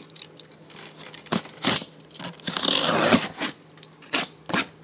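Cardboard shipping box being opened: strong packing tape cut and pulled with a box cutter. A longer tearing, ripping noise comes about two and a half seconds in, among scattered sharp clicks and knocks of the cardboard being handled.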